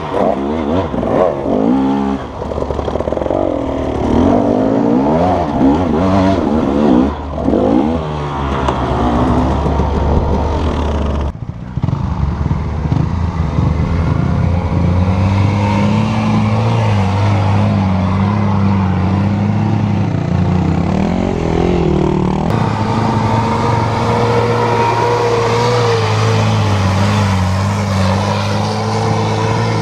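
Dirt bike engines revving hard, the pitch rising and falling quickly again and again. After a sudden break about eleven seconds in, an engine runs steadily at an even pitch, shifting slightly a couple of times.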